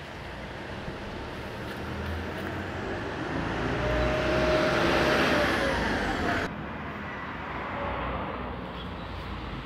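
A road vehicle passing, its noise growing louder to a peak about five seconds in, then dropping away sharply.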